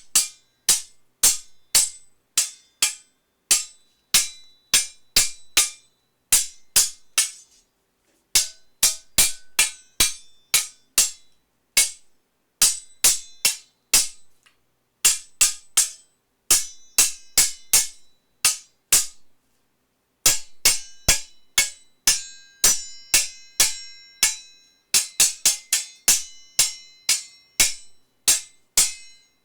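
Sword sound effects: rapid series of sharp metallic blade hits and clashes in quick groups of two to five, several strikes about two-thirds of the way through leaving a ringing metallic tone.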